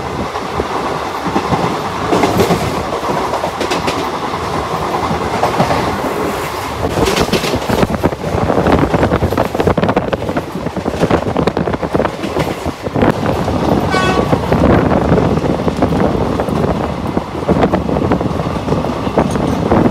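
Passenger express train running, heard from an open coach doorway: wheels clacking over rail joints, the coach rattling and wind rushing, louder from about eight seconds in. Another train's coach is alongside at the start, and there is a short high-pitched toot about two-thirds of the way through.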